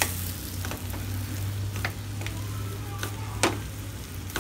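Metal utensil scraping and knocking against a steel kadhai as boiled potatoes are mashed into a spiced vegetable mixture, with light sizzling from the hot pan. Several sharp clicks, the loudest about three and a half seconds in, over a steady low hum.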